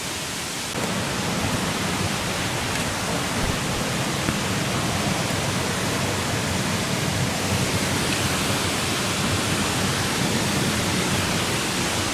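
Waterfall water rushing in a steady, even roar that gets louder about a second in.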